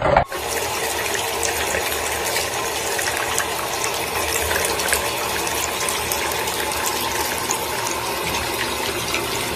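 Water running steadily from a shower hose into a plastic tub and spilling over its rim, starting a moment in.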